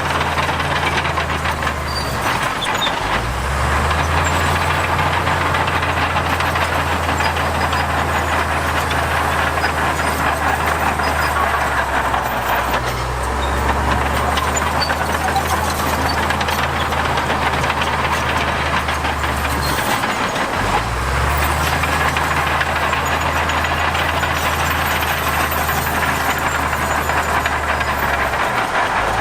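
Heavy diesel construction machinery running, its deep engine note dropping and picking up again a few times as the load changes, under a dense mechanical noise.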